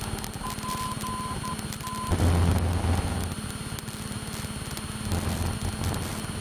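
A single-engine light aircraft's piston engine and propeller running at a steady cruise drone, heard over the cockpit intercom. A string of short high beeps comes early on, and a louder swell of low rumble follows about two seconds in.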